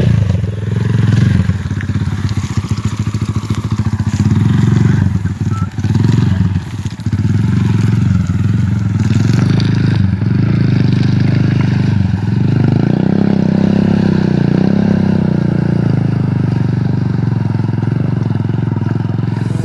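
Rusi Classic 250 motorcycle engine running under throttle on a muddy trail, its pitch dipping briefly a few seconds in and swelling up and back down near the middle.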